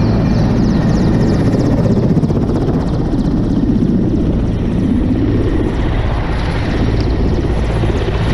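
Helicopter hovering low overhead: a loud, steady drone of rotor and engine.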